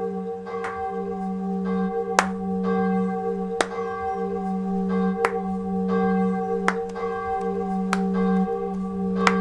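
Church bell tolling to strike midnight, with a stroke about every second and a half, each one ringing on into a steady hum.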